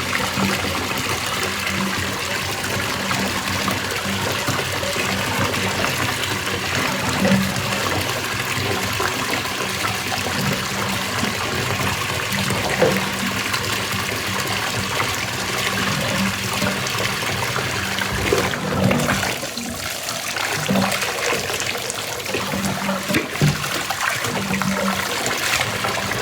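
Water running steadily and splashing, as when washable vacuum parts are rinsed under a tap.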